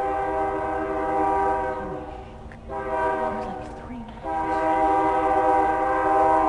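Diesel locomotive air horn on BNSF 4577 sounding three chord blasts, long, short, then long and held, the tail of a grade-crossing warning, over the low rumble of the approaching train.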